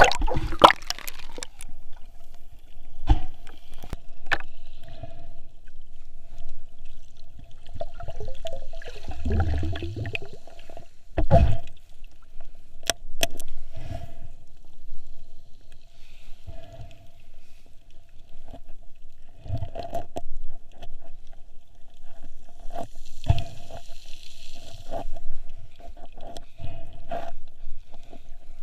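Water sloshing and gurgling around a snorkeler's camera in the sea, with irregular knocks and clicks against it and a faint steady tone underneath.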